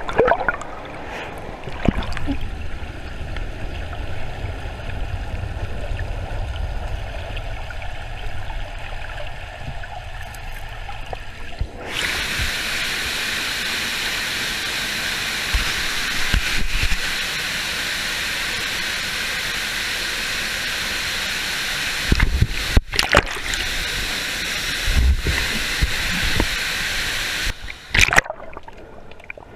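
River water rushing and sloshing below a waterfall. For the first twelve seconds or so it is dull and low; then it changes suddenly to a bright, steady rushing hiss, with a few abrupt breaks near the end.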